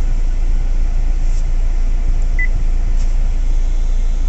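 Steady low hum inside a Hyundai Creta's cabin, from the idling engine and the climate-control air-conditioning, with one short high beep about two and a half seconds in.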